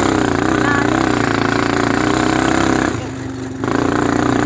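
Motor vehicle engine running steadily under heavy wind noise on the microphone; the sound dips for about half a second near three seconds in, then returns.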